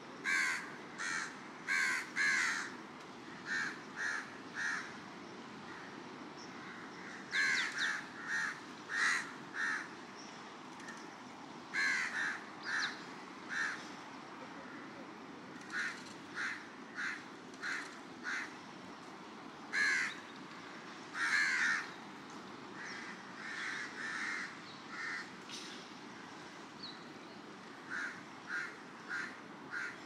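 Crows cawing: short harsh caws in repeated bouts of three to five, with pauses of a few seconds between bouts, over a steady low wash of surf.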